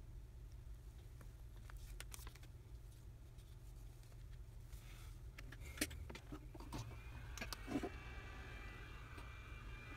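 Light clicks and taps as a smartphone's frame and display assembly are pressed together and handled on a bench, over a steady low hum. Near the end a hot-air heat gun starts up with a building whir and hiss.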